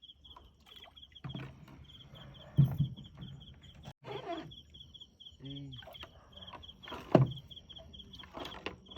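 Night insects chirping in a rapid, even pulse, about five or six chirps a second, with two loud knocks partway through.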